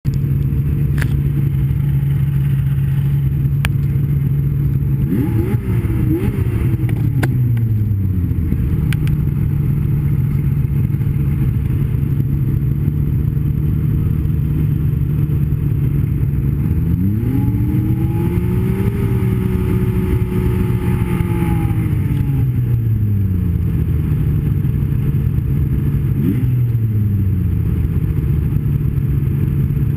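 Snowmobile engine running steadily under a constant low rumble, revving up and back down three times: briefly about five seconds in, a longer climb held for several seconds past the middle, and briefly near the end. A few sharp clicks sound in the first few seconds.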